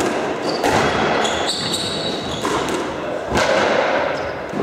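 Squash rally: the ball knocks sharply off racket, walls and floor three times, a second or so apart. Shoes squeak high on the wooden court floor about a second in.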